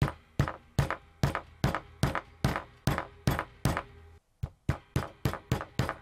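Small hammer tapping steadily on the end of a wooden chopstick wedged under a LiFePO4 cell's aluminium terminal bar to pry it up, sharp knocks at about two and a half a second. After a brief pause a little past halfway, the taps come quicker, about four a second.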